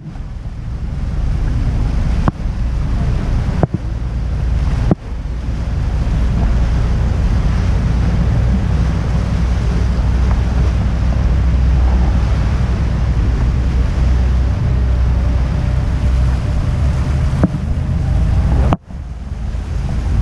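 Wind buffeting the microphone over the steady low rumble of a tour boat under way, with lake waves washing against the hull. The sound drops out abruptly for an instant a few times.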